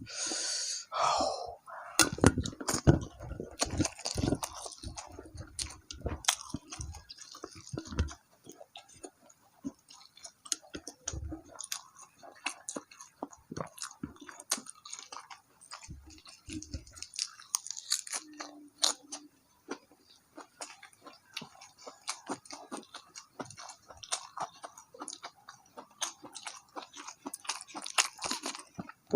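A person chewing and biting food, with a dense run of short crunchy clicks, louder in the first few seconds.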